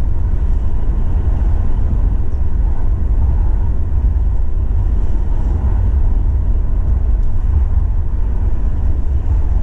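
Steady low rumble of a vehicle on the move, engine and road noise heard from inside the cab.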